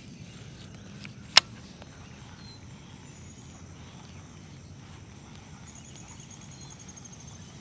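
Baitcasting reel cranked in a slow, steady retrieve, a low rumble of reel and handling noise, with one sharp click about a second and a half in.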